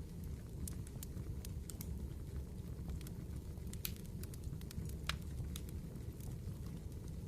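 Firewood burning in a campfire, crackling with scattered sharp pops and snaps over a steady low rumble, one louder snap about five seconds in.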